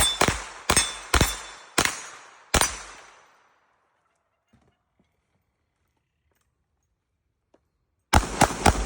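Gunshots: six shots spaced over about two and a half seconds, each trailing off, then a pause of about five seconds with only a few faint clicks, then a rapid string of about five shots in under a second near the end.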